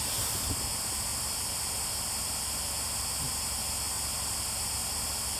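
Steady high-pitched hiss, even and unbroken, with a faint low hum beneath.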